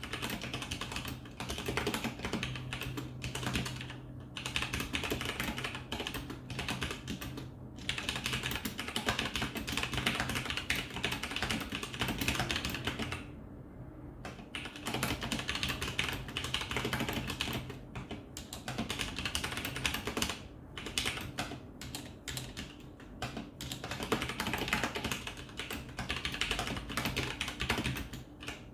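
Fast continuous typing on a Corsair K95 Platinum mechanical keyboard with Cherry MX Brown switches and its stock keycaps, a keyboard sound test. Dense key clatter, with a short pause about halfway through.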